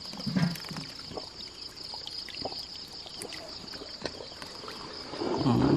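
Water lightly sloshing and trickling as a hand stirs and picks through winged moths floating in a metal basin of water, over a steady high-pitched hum. Near the end there is a short, louder low voice.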